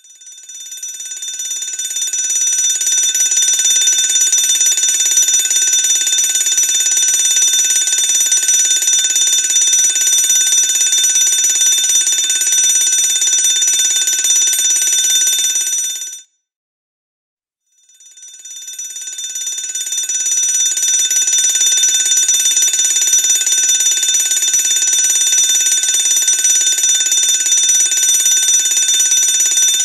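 Electric fire alarm bell ringing continuously, fading in over about two seconds. It cuts off abruptly about halfway through, and after a short silence the bell fades in again and keeps ringing.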